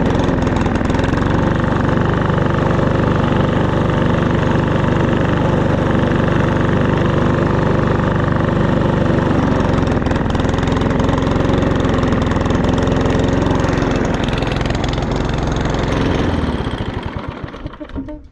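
Four-stroke push mower engine running steadily, then winding down and stopping near the end. Its air filter is soaked with oil from an overfilled crankcase, which is affecting the way it runs.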